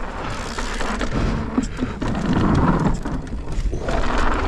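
Wind buffeting a helmet-camera microphone over the rumble of mountain bike tyres rolling on dirt, as the bike is ridden at speed toward a line of jumps.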